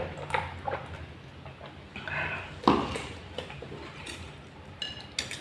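Eating sounds: scattered clicks of cutlery against a plate and chewing mouth noises as a plate of fried instant noodles is eaten, with a brief high-pitched squeak near the end.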